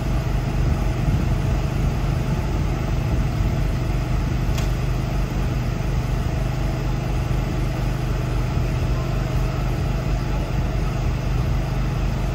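Fire truck's diesel engine idling with a steady low hum.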